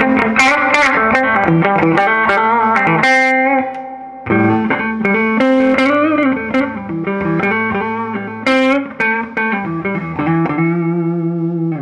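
2019 Gibson Les Paul Classic electric guitar played through an amp: a run of picked notes and chords that breaks off briefly about four seconds in and ends on a held note. The push-pull tone-stack bypass is switched in, which gives a little bit of a gain boost.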